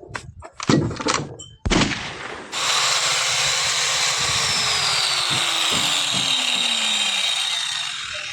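A few sharp knocks, then a power tool running steadily for about five seconds and easing off near the end.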